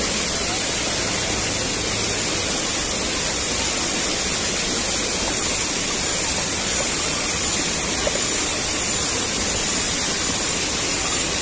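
Steady rushing of water from a waterfall and a rocky stream pouring over and around boulders.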